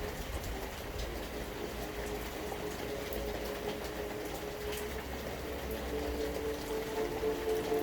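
Steady rain and running water, with a low rumble underneath. Faint held tones come in and grow stronger near the end.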